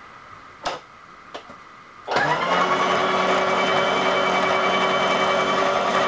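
A couple of small clicks, then a vertical milling machine's motor starts about two seconds in and runs at a steady whine. It begins to wind down at the very end.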